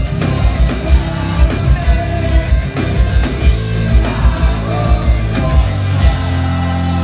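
A live rock band playing loud, with distorted electric guitars, bass, drums and a singer. About six seconds in, the drums stop and a final chord rings out.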